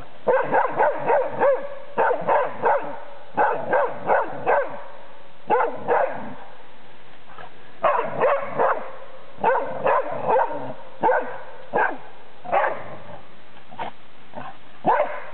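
Dog barking at a dead wild boar, baying at the found game. Short barks come in quick runs of several, with short pauses between the runs.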